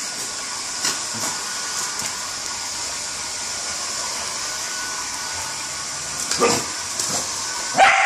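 Hand-held hair dryer running with a steady blowing hiss and motor whine while a dog lunges at it. The dog barks a few times: once faintly early on, then louder near the end.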